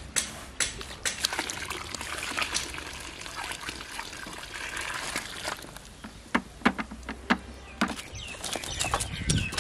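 Liquid pouring and splashing into a large pot of natural dye bath, a steady trickling wash, followed by a few sharp clicks about two seconds before the end.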